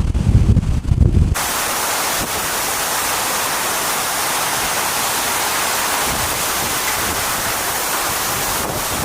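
Hurricane wind buffeting the microphone in low gusts, then, after an abrupt cut about a second and a half in, a steady, even rushing hiss of storm wind and driving rain.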